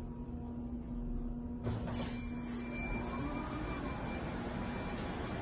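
Schindler 5500 elevator reaching its floor: a low steady hum in the cab, then about two seconds in a single bright arrival chime that rings out and fades, followed by the doors sliding open.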